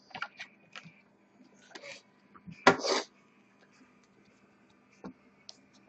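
Trading cards being handled and set down on a glass tabletop: scattered light clicks and rustles, with one louder, noisier sound of about half a second at the midpoint.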